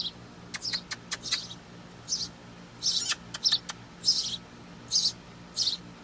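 Baby birds in a nest giving short, high-pitched begging chirps, about a dozen at irregular intervals: hungry nestlings calling for food.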